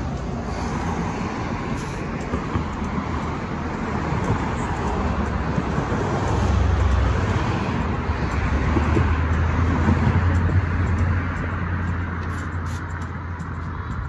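Road traffic going by, with a low vehicle rumble that builds to its loudest through the middle seconds and fades over the last few.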